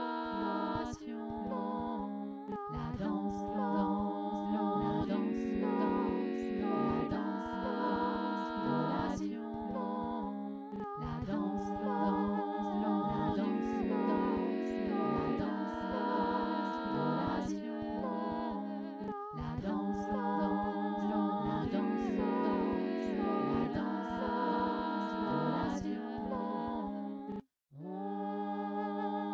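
Layered a cappella vocal music: several humming voices stacked over one another in repeating loops. It cuts out briefly near the end.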